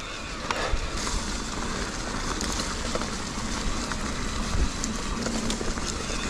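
Mountain bike being ridden over rough ground: a steady rush of tyre and wind noise with scattered clicks and knocks from the bike.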